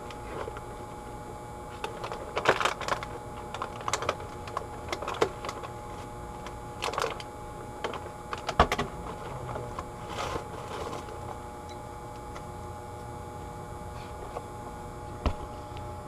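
Scattered clicks, taps and rustles of handling, over a steady background hum.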